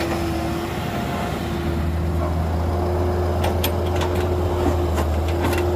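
Caterpillar hydraulic excavator's diesel engine running steadily under load while it digs and swings. In the second half, a scatter of knocks and clatter as a bucketful of soil drops into the dump truck's bed.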